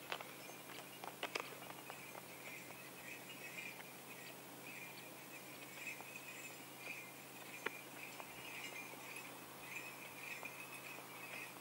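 Faint, steady jingling of bells on a walking horse's harness, pulsing along with its gait, with a few light clicks near the start and once about two-thirds of the way through.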